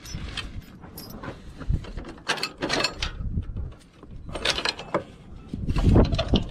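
Wrenches working the bolts of a garden tractor's rear hitch: irregular metallic clicks and clanks in short clusters.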